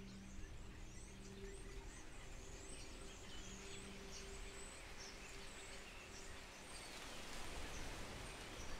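Faint ambient soundscape: quick high chirps and twittering over two steady low hum tones, which drop out about two thirds of the way through.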